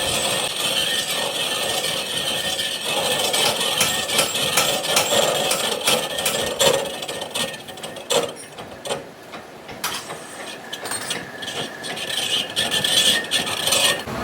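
Workshop tool work on metal: continuous rasping and scraping with scattered knocks. It eases off about eight seconds in, then picks up again.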